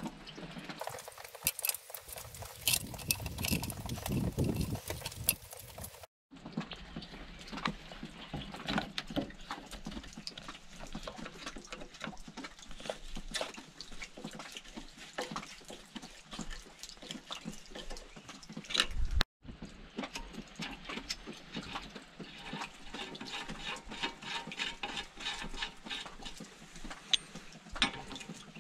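Irregular clicks, taps and light metallic knocks from hand tools and engine parts being handled as a small two-stroke engine is put back together.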